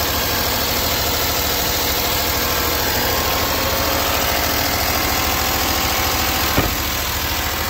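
2012 Land Rover LR4's 5.0-litre V8 idling steadily, heard close up in the engine bay, with the ticking/knocking noise the owner is chasing on one side of the engine. A single brief thump comes near the end.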